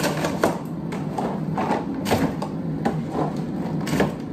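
Packaged groceries being handled and set down: irregular light clicks and knocks, two or three a second.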